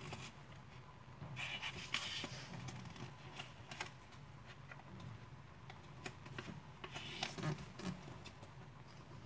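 A square sheet of paper rustling and crinkling as hands fold and crease it, in short scattered spells, with louder spells about one and a half seconds in and again around seven seconds in.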